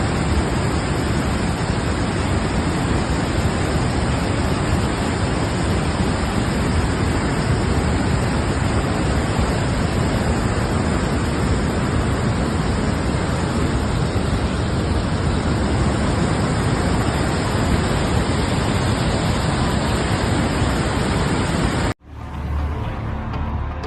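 Steady roar of rushing floodwater from a river swollen by a cloudburst. It cuts off abruptly about 22 seconds in, and music begins.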